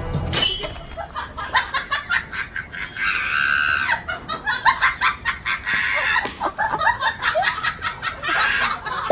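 Chickens clucking and squawking in several drawn-out calls, over many quick short clicks and scuffles.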